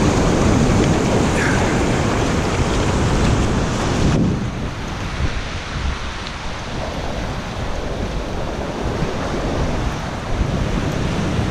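Ocean surf and wind rushing over the microphone as a steady, even noise. About four seconds in it drops suddenly and stays quieter and duller.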